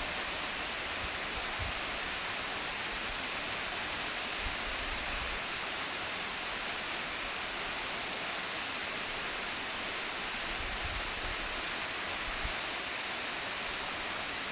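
Tall waterfall plunging into its pool: a steady rushing hiss of falling water.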